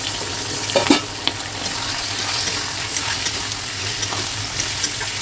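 Broiler chicken pieces sizzling in hot oil with fried onions in a karahi, stirred with a spatula that clicks and scrapes against the pan, with a louder knock about a second in.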